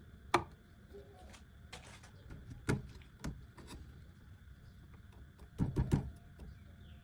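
Scattered sharp clicks and knocks over a faint steady hum: one sharp knock near the start, two more in the middle, and a quick run of about four knocks near the end.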